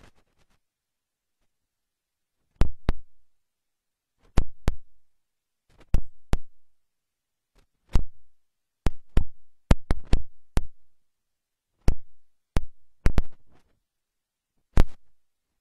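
Sharp, deep thumps, singly and in quick runs of two to seven, at irregular intervals, starting about two and a half seconds in.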